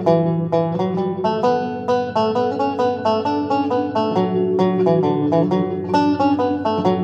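Solo resonator banjo played in a waltz tune, a steady stream of plucked notes ringing over a held lower line.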